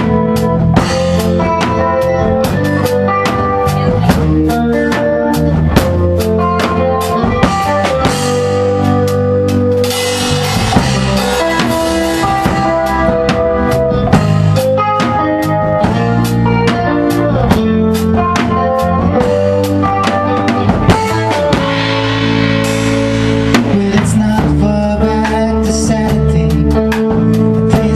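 Live rock band playing an instrumental passage: electric guitar and bass over a Tama drum kit keeping a steady beat, played loud in a small rehearsal room.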